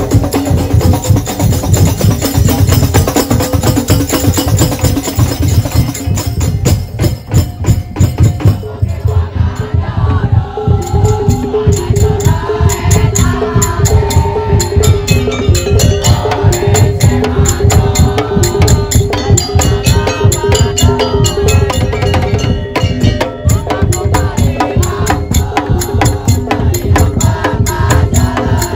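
Daul Madura percussion ensemble playing: dense, fast drumming and wooden clacks over a steady held tone, with a melody entering about ten seconds in. The drumming thins briefly just before the melody comes in.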